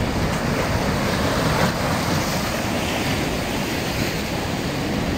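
Wind rumbling and buffeting on the microphone over the steady wash of ocean surf.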